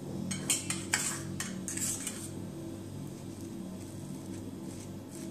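A table knife scrapes and clinks in a small steel bowl as butter is scooped out, in a quick run of strokes during the first two seconds. Softer knife strokes follow as the butter is spread on a slice of bread.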